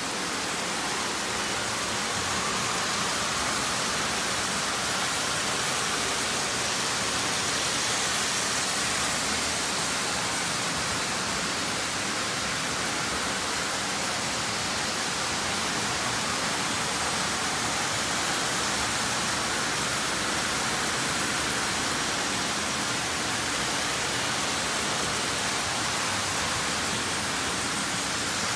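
Several Lionel toy trains running together on metal three-rail track, a steady whirring rush of wheels and motors that holds at one level throughout.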